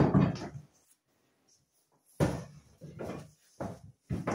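Large thin wooden board sheets being handled and shifted, with knocks and flexing rumbles as they bump and wobble. A short burst comes at the start, then a pause of over a second, then several short bursts from about two seconds in.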